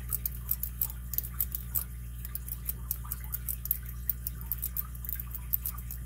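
Lock pick clicking against the pin tumblers inside a solid brass Hercules 800 padlock: quick, irregular light clicks, several a second, as the pins are worked without setting. A steady low hum runs beneath.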